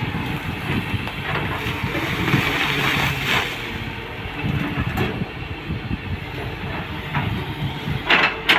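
Excavator diesel engine running steadily under work, with scattered knocks and a couple of sharp clanks near the end.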